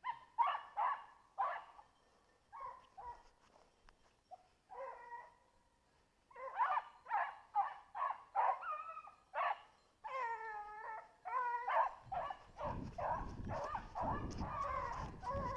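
Young Griffon bleu de Gascogne hound baying: a quick run of high yelping calls, a few drawn out and bending in pitch. A low rustle of brush rises under the calls near the end.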